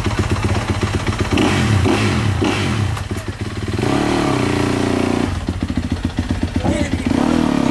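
Yamaha YZ250F four-stroke single-cylinder dirt bike engine running at a pulsing idle and revved up three times: briefly about a second in, held for over a second around the middle, and again near the end.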